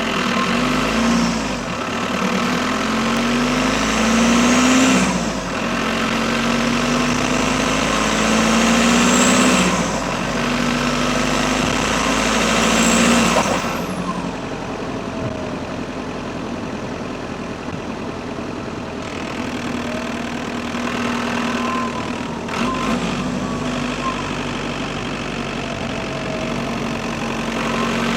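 Audi A6's 2.0 PD four-cylinder turbodiesel pulling through the gears, its pitch climbing three times with a drop at each shift. After that it runs steadier and quieter, with a thin turbo whistle that falls away and then rises and falls again.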